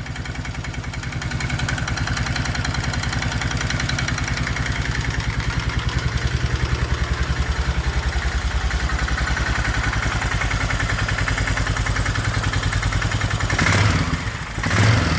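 Polaris ATV engine idling steadily on a newly fitted aftermarket carburettor, warming up just after starting. The idle is even and regular, with two brief louder noises near the end.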